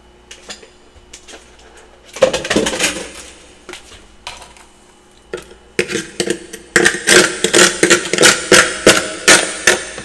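Freezer frost crunching: a short burst of crunching about two seconds in, a few scattered clicks, then a rapid run of sharp crunches, about three a second, from about six seconds in.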